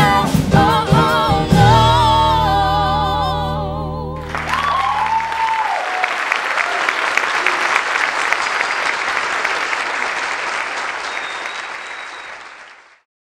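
A musical-theatre cast singing with the band, ending on a long held note with vibrato. About four seconds in, an audience breaks into applause with a cheer, and the applause fades out near the end.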